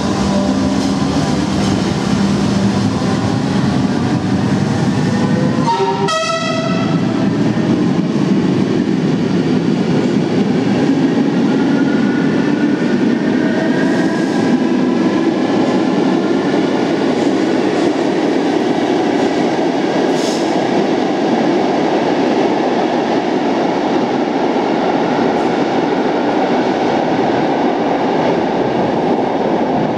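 Electric multiple unit running through the station, a steady loud rumble and rattle of wheels on rail. A short horn blast sounds about six seconds in, and a faint rising whine follows a few seconds later.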